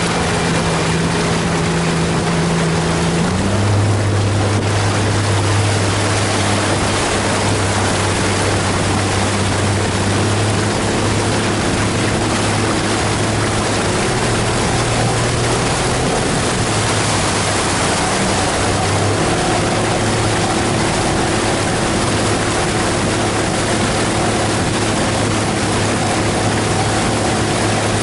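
A 90-horsepower outboard motor pushing a small open boat at speed, under a rush of wind and wake water. A little over three seconds in, the engine tone drops to a lower steady pitch and holds there.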